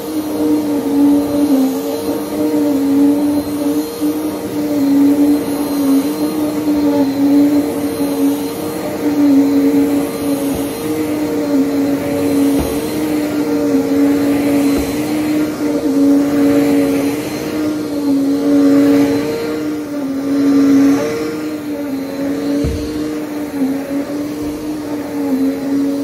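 Upright vacuum cleaner running on carpet, a steady hum that dips slightly in pitch and swells and fades every couple of seconds as it is pushed and pulled across the pile.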